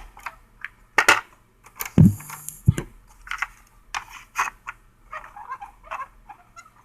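Scattered light clicks and knocks from hands handling the parts of a portable radio-cassette recorder during repair, with a heavier thump about two seconds in.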